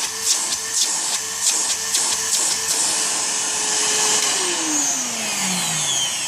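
Panasonic MC-E451 upright vacuum cleaner running with a steady whine and an irregular rushing pulse. About four seconds in it is switched off and the motor winds down, its whine falling steadily in pitch. The owner finds afterwards that the machine's drive belt has stretched.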